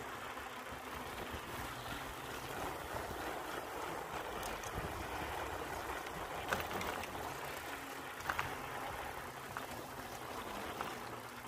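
Bicycle rolling along a wooden dock: a steady rumble of tyres on the planks, with a few sharp clacks as the wheels cross board joints.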